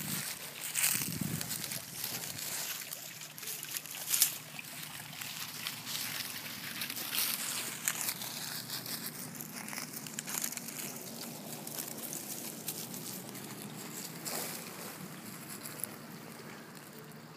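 Dry fallen leaves rustling and crackling under two basset hound puppies as they wrestle and chew on the ground, in irregular bursts of small crackles.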